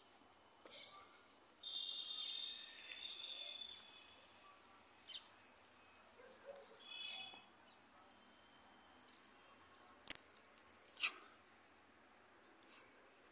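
Faint outdoor ambience with two short bouts of high-pitched chirping, then a quick cluster of sharp clicks about ten seconds in.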